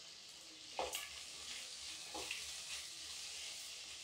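Sliced onions and tomatoes frying in oil in a kadai, a faint steady sizzle, with a wooden spatula stirring and scraping the pan a couple of times.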